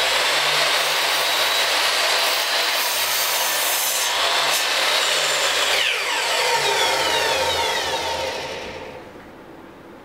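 Porter-Cable miter saw running at full speed and cutting through a wooden board. About six seconds in, the trigger is let go and the motor's whine falls in pitch and fades as the blade spins down over about three seconds.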